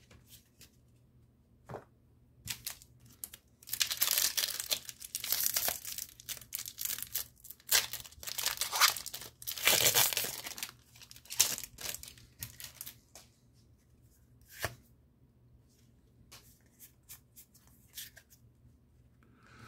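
Foil wrapper of a Pokémon TCG booster pack being torn open and crinkled, in several bursts of tearing over a few seconds, loudest in the first half. It is followed by scattered light clicks near the end as the stack of cards is handled.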